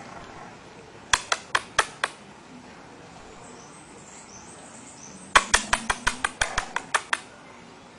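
Two runs of sharp, quick clicks: five about a second in, then about ten faster ones from about five seconds in.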